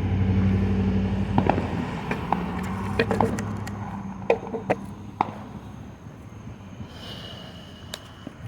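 Scattered firework pops and crackles, thinning out as the display dies down, over a low steady hum that fades about halfway through.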